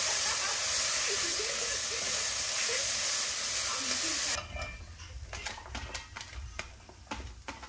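Food sizzling in a hot pan, a dense steady hiss, which cuts off abruptly about four seconds in. A quieter stretch follows, with scattered light clicks and taps over a low hum.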